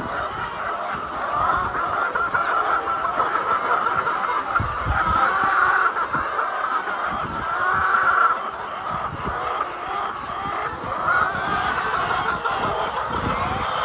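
A flock of laying hens clucking and cackling together, many overlapping calls forming a dense, continuous chorus.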